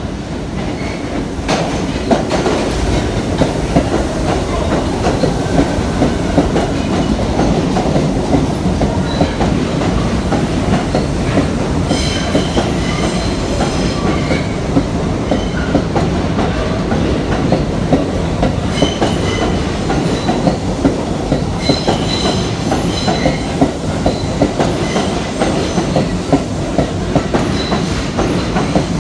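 R62A subway train pulling out and passing along the track: a steady heavy rumble with rapid clicks of the wheels over rail joints. High-pitched wheel squeals come in about twelve seconds in and again around twenty seconds in.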